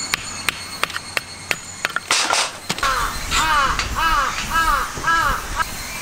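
A crow cawing about five times in quick succession, starting about halfway in. Before the calls comes a regular series of light knocks, two to three a second.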